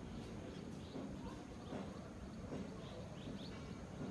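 Faint outdoor ambience with a few short, distant bird chirps over a low steady rumble.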